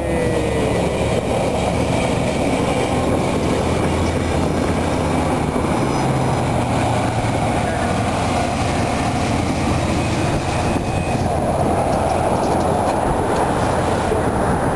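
Tri-Rail commuter train passing close by: a steady, loud run of wheel and rail noise with locomotive rumble. At the very start, the tail of its horn drops in pitch as it goes by.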